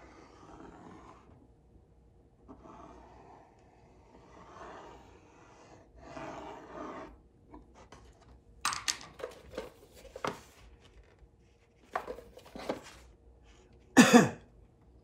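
A metal compass scraping around a plywood disc in several soft passes as circles are scribed, then a run of sharp clicks and taps of tool handling. Near the end, a loud knock as the round turntable base is set down on the plywood.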